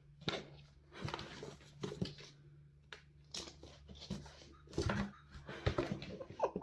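Kittens scratching and bumping on a cardboard box: irregular scrapes and soft knocks on the cardboard, with one kitten shut inside the box and another clambering on its lid.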